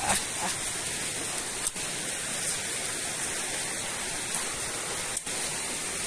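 Steady, even hiss of outdoor forest background noise with no single clear source, broken only by two faint clicks, one about a second and a half in and one near the five-second mark.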